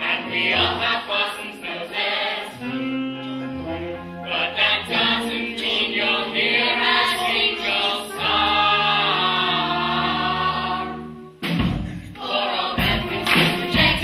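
Large school cast singing in chorus with a band, ending on one long held chord. About eleven seconds in the music stops and the audience applauds.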